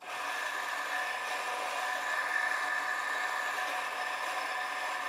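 Bentwood Vertical 63 electric coffee grinder running steadily, its motor driving 63 mm flat burrs through coffee at an espresso-fine setting: an even whir with a steady high tone. It starts abruptly as the grind begins.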